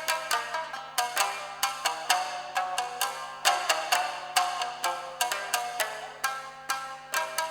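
Tsugaru shamisen ensemble playing a fast, driving rock-style piece: hard plectrum strikes come several times a second, each with a sharp percussive snap followed by ringing plucked notes.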